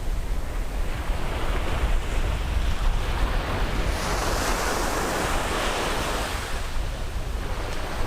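Ocean surf on a Caribbean beach, with waves breaking and washing in steadily. A bigger wash swells about four seconds in and fades before the end. Wind rumbles low on the microphone throughout.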